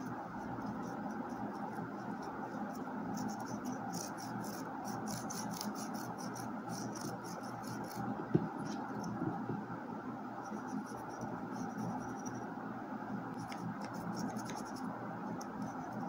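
Paintbrush bristles scratching and rubbing over the popsicle-stick slats of a miniature wooden pallet as a wash is brushed on, in runs of quick strokes. There is one sharp knock about eight seconds in.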